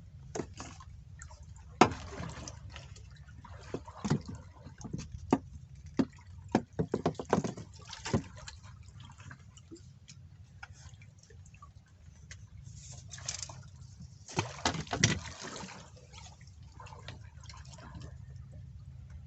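Water sloshing and splashing in bursts, with scattered sharp knocks, over a steady low rumble.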